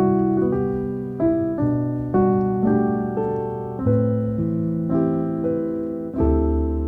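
Background music: slow solo piano, notes and chords struck about every half second and left to ring, with a deeper chord near the end.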